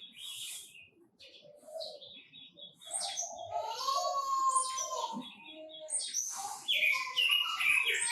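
Quế Lâm songbirds singing and chirping: runs of quick repeated high notes and sharp calls, busier and louder in the second half.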